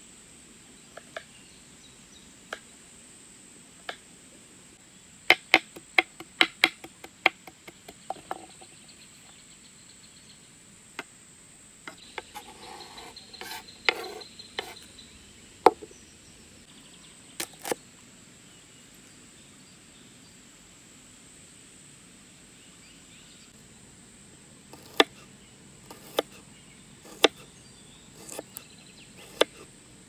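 Kitchen knife chopping onion and garlic on a wooden cutting board: sharp knocks of the blade on the board, a quick run of them about five seconds in, then scattered single cuts. There is a brief rustle around twelve to fourteen seconds in.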